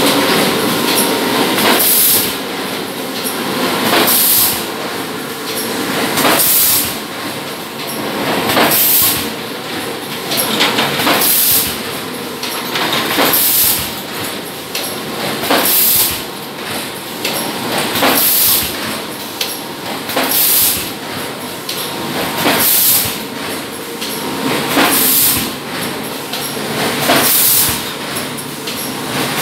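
PET bottle blow-moulding machine running in production: a steady mechanical clatter, cut by a short, sharp hiss of compressed air about every two and a quarter seconds, one for each blowing cycle.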